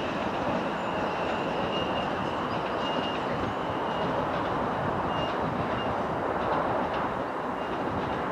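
Class 720 electric multiple unit running away along the track: a steady rumble of wheels on rail, with a faint high whine coming and going on top.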